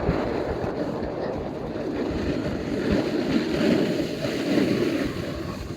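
Skis sliding and scraping over packed snow, with wind rushing over the microphone as a steady hiss.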